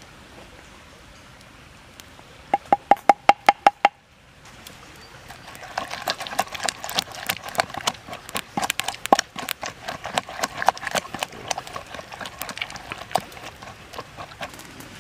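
Wooden pestle pounding in a wooden mortar. A quick, even run of about nine sharp wooden knocks comes a couple of seconds in, then a longer stretch of irregular pounding and mashing in a wet chili mixture.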